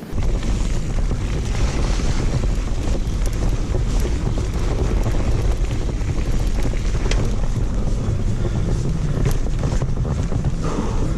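Wind buffeting an action camera's microphone on a mountain bike moving fast down a trail, a dense steady rumble with a few sharp rattles and knocks from the bike.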